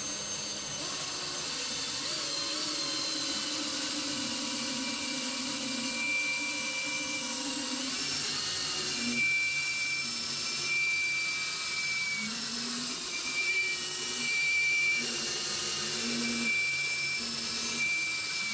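Power drill running steadily, spinning a homemade rust-cleaning tool inside a rusty tube to scour the rust out of its bore. A high tone comes and goes from about six seconds in, as the tool works against the metal.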